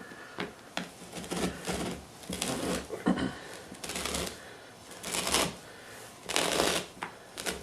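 Carpet cookie-cutter tool being twisted into the carpet, its blade cutting through the pile and backing in a series of scratchy, rasping strokes about a second apart.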